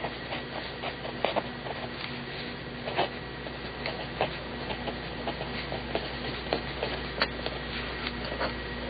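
BIC mechanical pencil lead writing on paper: irregular scratching strokes and small taps, over a steady hum.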